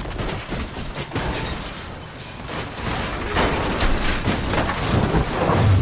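Film sound effects of crashing rock and debris: a dense clatter of many small impacts with low rumbles, growing louder about three seconds in.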